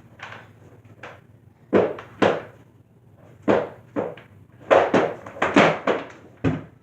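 Skateboard deck and wheels knocking and clattering against homemade ramps and the floor: about a dozen sharp thunks at uneven intervals, coming thicker and louder in the second half, in a small room.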